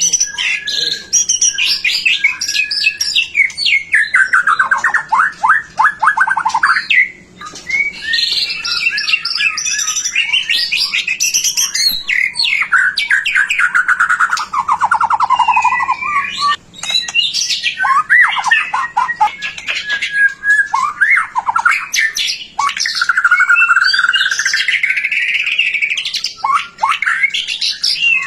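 White-rumped shama singing without pause: a rich, varied song of fast trills, whistles and chattering notes, with long trills that sweep downward in pitch. The song breaks off only briefly, twice.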